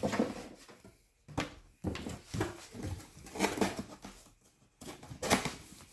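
A humidifier and its packaging being handled during unpacking: irregular rustles and knocks in several short bursts.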